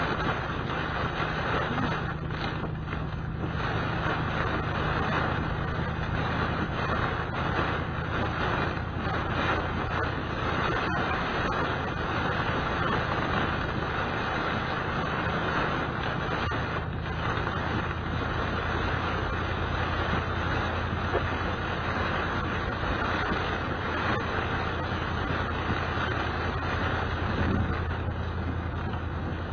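A car driving on a wet road in rain, heard from inside the cabin: a steady engine hum under tyre hiss and rain on the windshield.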